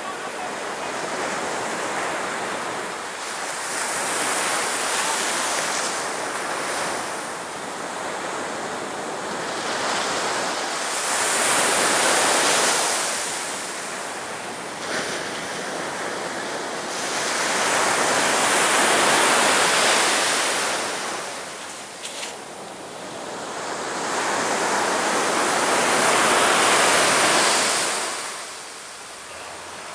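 Sea waves breaking on a beach, the surf swelling and fading four times, about every seven to eight seconds.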